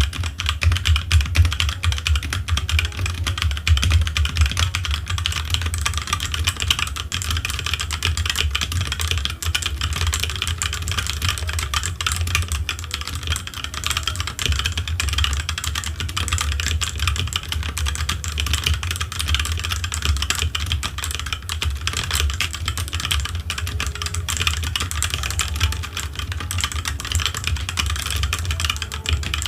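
Fast, continuous typing on a HyperX Alloy Origins mechanical keyboard: a dense stream of key clicks with a low thud under each stroke, keeping up an even pace.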